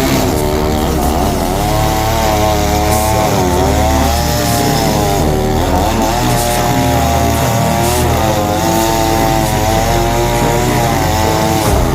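Chainsaw running at high revs while cutting wood, its pitch sagging and recovering every couple of seconds as the chain bites in and frees up.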